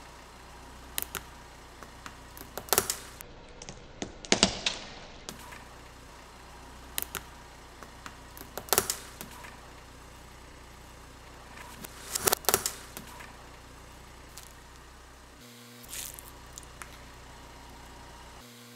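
Car tyre rolling over mesh squeeze balls filled with water beads: irregular sharp cracks and pops as the balls burst and the beads are crushed, over a steady low engine hum.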